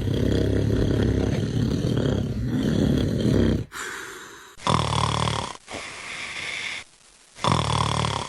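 A man snoring: one long snore lasting over three seconds, then two shorter snores, about four and a half and seven and a half seconds in.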